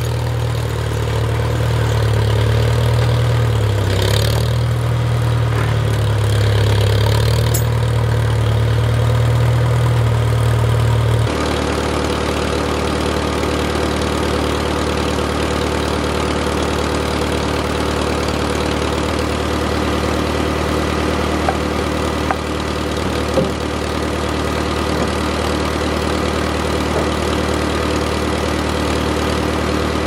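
Old tractor engine running as it drives, then after a cut about a third of the way in, idling steadily beside the woodpile. A few light knocks sound around the middle.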